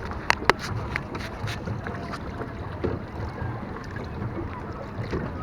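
Small hired boat moving on the water: water sloshing against the hull over a steady low rumble, with wind on the microphone. Two sharp clicks come about half a second in.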